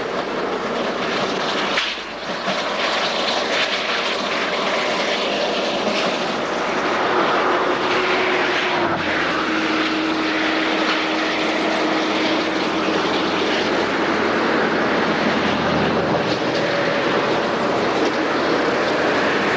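Narrow-gauge Mallet steam locomotive (U 47) hauling a train away, heard as a loud, steady rushing roar of exhaust and steam with no distinct beat, and a faint hum underneath.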